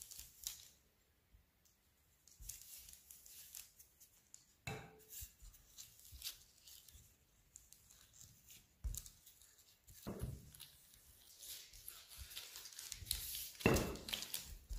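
Shortcrust pastry being rolled out on a sheet: faint, intermittent rustling and crinkling of the sheet, with a few light knocks, the loudest near the end.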